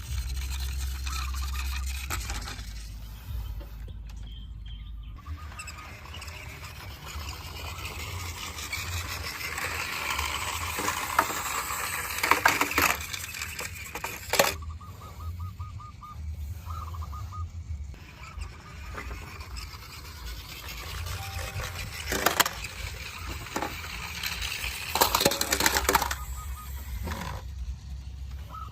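Diecast toy vehicles being handled: irregular clicks, scrapes and clatter of small hard parts, with several sharp knocks spread through.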